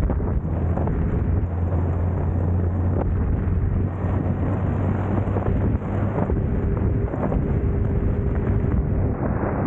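BMW K1600 GTL motorcycle's inline-six engine running steadily while under way, with wind rushing over the microphone.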